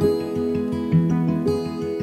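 Background instrumental music of plucked string notes, a new note or chord about every half second.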